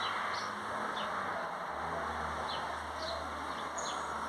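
Small wild birds chirping: scattered short, high, downward chirps over a steady rushing background noise, with a low hum coming in about two seconds in.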